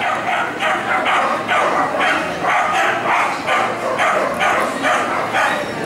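A schnauzer barking steadily and rhythmically, about three barks a second.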